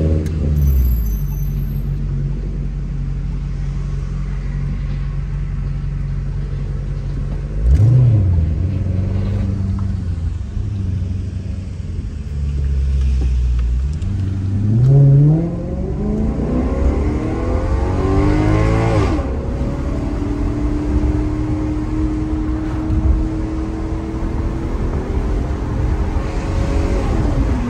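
Maserati GranTurismo's Ferrari-built V8 engine and exhaust under way. A short rev blip comes near the start and another about eight seconds in. Then the revs climb for several seconds and fall sharply, and the engine settles to a steady cruise with a small blip near the end.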